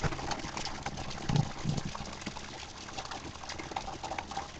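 Steady rain falling, an even hiss dotted with many small drip ticks, with a couple of soft low thumps about a second and a half in.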